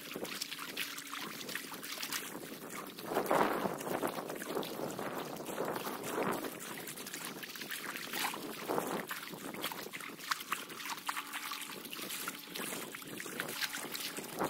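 Rushing, splashing water of a fast-flowing flooded river, with a few louder surges.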